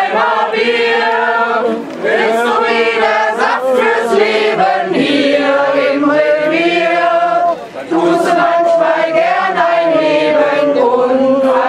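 A group of voices singing together in long, held notes, with little or no instrumental backing.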